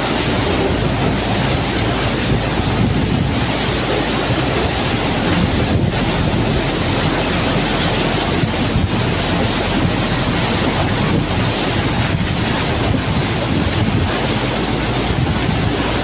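Hurricane-force wind blowing hard and steadily through palm trees with wind-driven rain, buffeting the microphone in one continuous loud rush.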